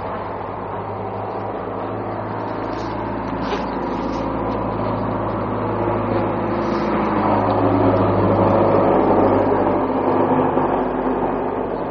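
Suzuki GS500 parallel-twin motorcycle engine running steadily, growing a little louder about two-thirds through and then easing off again.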